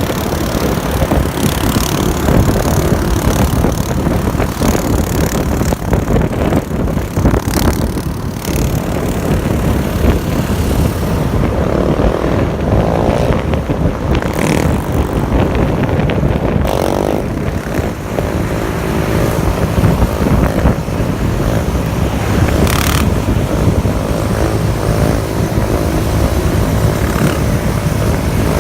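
Single-cylinder sport ATV and motorcycle engines running and revving while under way. The engine pitch wavers up and down in the middle stretch, then holds steadier.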